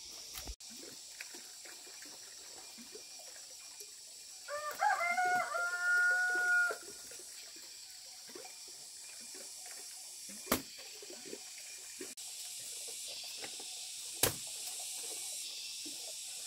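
A rooster crowing once, a drawn-out call of about two seconds beginning a few seconds in. Later come two sharp knocks.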